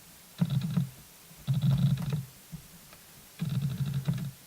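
Camera autofocus motor in a Sigma 18-200 mm zoom lens chattering as it hunts for focus, picked up by the camera's sensitive microphone. It comes in three short bursts, each under a second, about one to two seconds apart.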